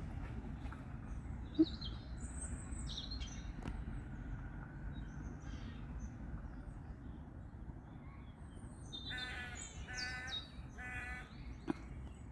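Scattered small bird chirps over a low steady background rumble, then three harsh, evenly spaced calls about nine to eleven seconds in.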